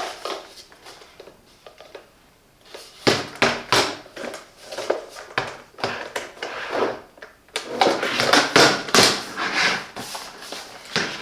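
Plastic parts of a drip coffee maker handled, giving irregular clicks and knocks that start about three seconds in and come thickest in the later part.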